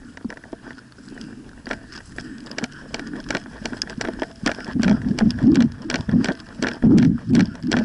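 Footsteps through dry brush, with twigs and dry vegetation crackling in many sharp irregular clicks. The heavy steps get louder and come every half second or so from about halfway through.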